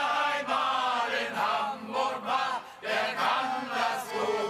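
Men's shanty choir singing a German song in unison, with accordion accompaniment.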